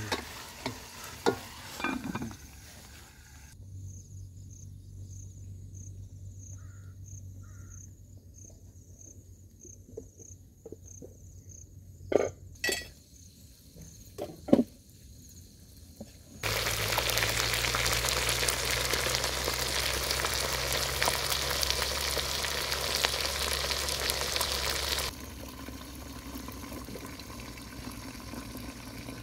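A spoon and metal lid clatter against a cooking pot as food is stirred, followed by a quiet stretch with a few clicks and a faint repeating high chirp. Later a loud, steady sizzling hiss of cooking over the fire cuts in suddenly, holds for several seconds and drops away just as suddenly to a softer hiss.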